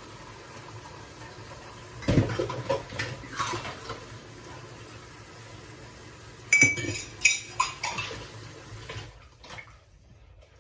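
Dishes and cutlery being washed by hand at a kitchen sink: crockery and utensils clatter in two bouts, about two seconds in and again around seven seconds, over water running from the tap, which stops about nine seconds in.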